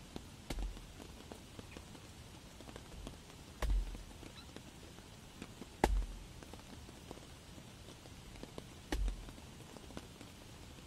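Hatchet chopping into a wet log: four heavy, thudding chops a few seconds apart, the loudest about six seconds in, with lighter knocks between them. A steady hiss of rain sits behind.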